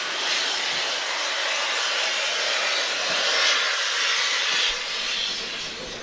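Steady rushing hiss of a steam locomotive approaching along the line, a little louder about halfway through, then easing near the end.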